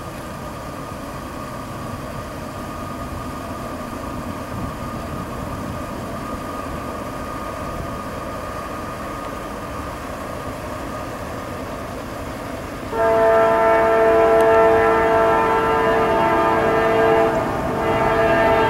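Approaching CSX diesel freight locomotive running with a steady rumble, then about 13 seconds in it sounds its multi-note air horn in a loud, long blast that breaks briefly near the end and starts again.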